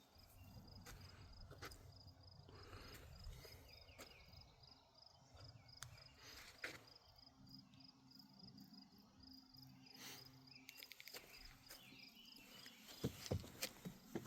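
Faint outdoor nature ambience: an insect chirping steadily in a high, rapid pulse of a few beats a second, with a few short bird chirps and a low rumble of wind.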